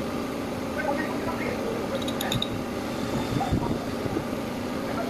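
Steady whirring background noise, with a few light metallic clinks about two seconds in and a couple of dull knocks a little later, from small parts being handled at a motorcycle engine's water-pump housing.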